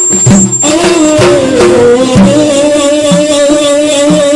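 Middle Eastern music: sharp hand-drum strokes, then from under a second in one long wavering melody line held over the drum.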